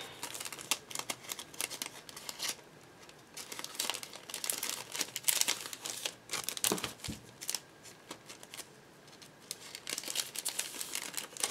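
Clear plastic pretzel bag crinkling in irregular spurts as small paper-wrapped chocolate bars are slid into it one by one.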